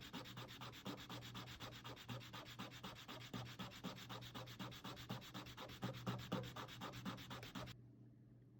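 Fast typing on a custom XD96 mechanical keyboard with Gateron Cream linear switches and PBT keycaps in an aluminium case: a rapid, continuous clatter of keystrokes that stops about a second before the end.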